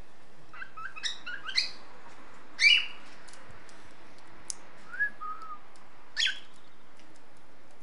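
Young cockatiel trying out its first song notes: a few short chirped whistles about a second in, a louder call near three seconds, a soft falling whistle around five seconds and another call near six seconds.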